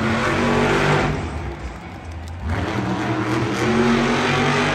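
Monster truck's supercharged V8 engine revving hard in two long surges: about a second at the start, then, after a brief drop, about three seconds more.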